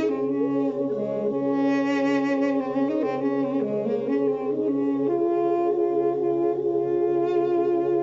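Armenian duduk playing a slow melody: long reedy notes that step from pitch to pitch several times, with a wavering vibrato on the held notes and a steady low tone beneath.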